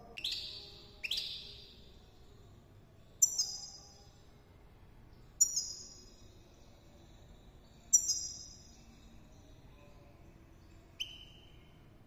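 Caged European goldfinch calling: six short, sharp calls spaced one to three seconds apart, each ringing briefly. Some are high and clear, and the last one is lower.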